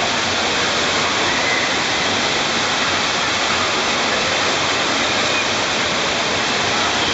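Steady rush of water spraying and splashing down from a waterpark play structure.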